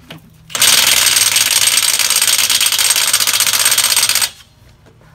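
Cordless impact wrench hammering on a wheel lug nut. It runs in one continuous burst of about three and a half seconds, starting about half a second in and stopping abruptly.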